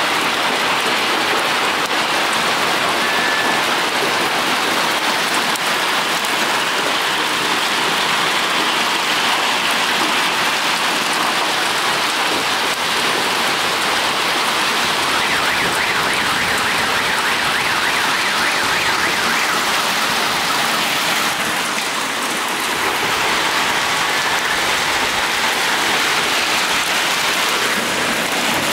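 Heavy summer hail, stones about the size of quail eggs, pelting down on pavement and parked cars: a steady, dense rattle of countless impacts, much like a downpour.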